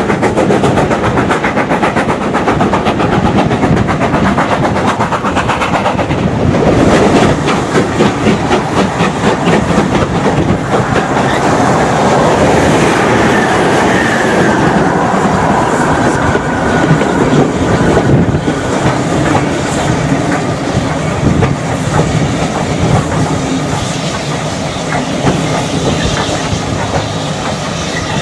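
Train running noise heard from a coach window, with the coach wheels clattering rapidly and steadily over the rails behind two steam locomotives double-heading ahead.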